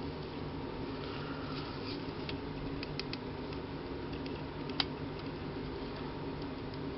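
Steady low hum of room noise, with two light clicks about three seconds in and a sharper single click near five seconds.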